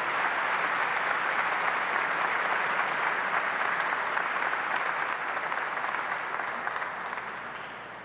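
A large crowd applauding steadily, dying down near the end.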